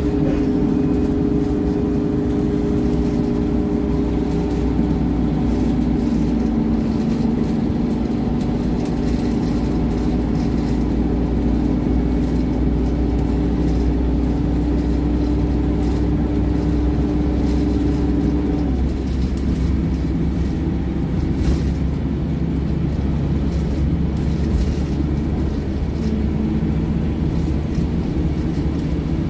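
Scania OmniLink single-deck bus heard from inside the passenger cabin while driving: a steady engine and driveline drone with road noise. About two-thirds of the way through, the held tone in the drone drops away, and a lower tone comes in near the end.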